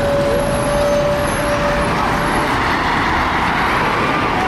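Volvo B7TL double-decker bus heard from on board while running: engine and road noise with a steady high whine that fades about two seconds in. Over the same stretch a hoover-like rushing rises and swells, typical of the engine cooling fan.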